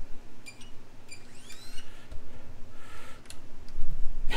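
Small servo motors on an RC crawler being worked from the transmitter: a few sharp clicks, then a brief rising whine about a second and a half in, over a faint steady hum.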